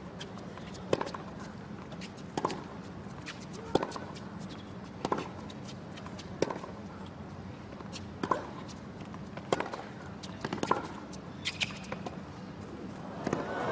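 Tennis ball struck back and forth with racket strings in a baseline rally, sharp hits about every second and a half. Crowd applause swells in right at the end as the point finishes.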